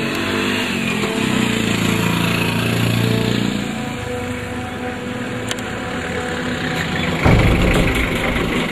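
A motor vehicle engine running, its pitch shifting for a couple of seconds about a second in, then a louder low rumble starting about seven seconds in.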